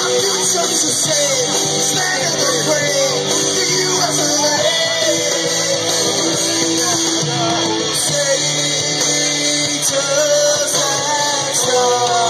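A rock song plays at a steady, loud level, with a singing voice over guitar.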